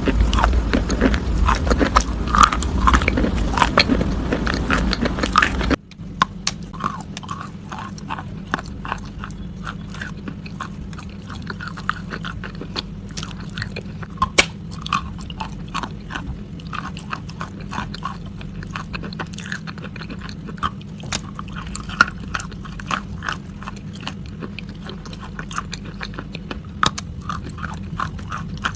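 Close-miked chewing and crunching of crisp food: a rapid, irregular run of crackles and crunches. About six seconds in it drops suddenly in loudness, then carries on quieter.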